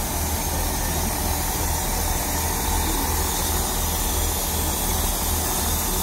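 First Great Western diesel multiple unit standing at the platform with its engine idling: a steady low throb under a constant hiss.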